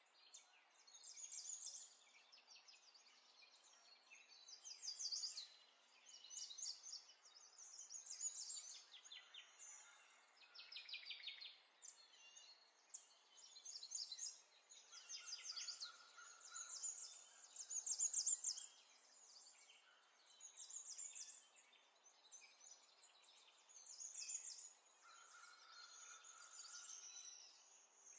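Faint birdsong: small birds chirping in quick trills every second or two, with a couple of short held whistled notes, over a low background hiss.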